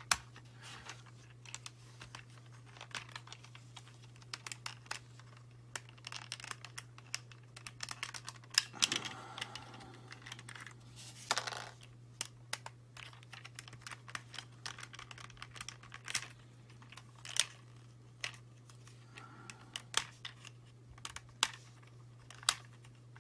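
Hard plastic parts of a Transformers Masterpiece MP-30 Ratchet figure clicking and rattling as they are handled, with the figure's small guns being fitted and pried loose. There are a couple of brief scraping rubs about nine and eleven seconds in, over a steady low hum.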